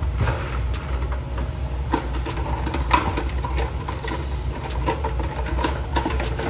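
A steady low hum with scattered light clicks and knocks over it.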